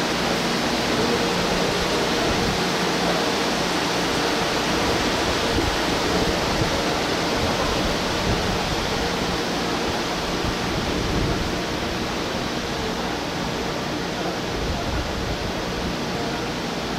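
Steady rushing noise with a faint low hum from a standing 413/455 series AC/DC electric train's equipment running while it waits at the platform.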